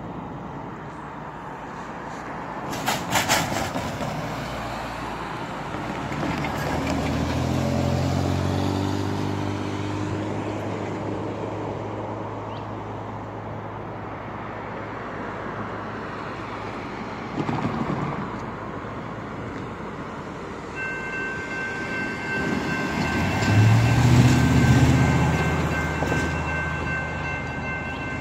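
Road traffic passing over a railroad grade crossing, with a brief clatter about three seconds in. About three-quarters of the way through, the crossing's warning bells start ringing steadily as the signals activate for an approaching freight train, and a loud low drone swells and fades a few seconds later.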